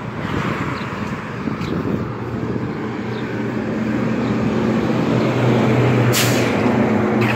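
Diesel engine of a semi-truck pulling an end-dump trailer as it drives past on the street, a steady low drone that grows louder as the truck comes alongside, over tyre and traffic noise. A brief sharp noise comes about six seconds in.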